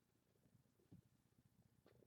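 Near silence: faint room tone with a couple of soft, low thumps, one about a second in and one near the end.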